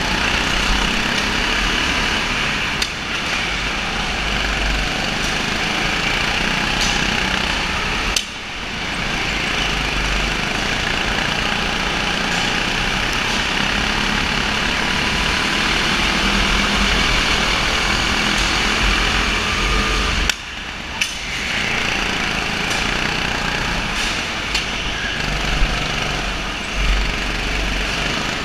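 Go-kart engines running steadily during an indoor kart race, dipping sharply for a moment twice.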